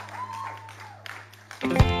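A quiet moment with a steady low hum and faint tones that rise and fall, then about one and a half seconds in a live band comes in loudly, electric guitars and drums together.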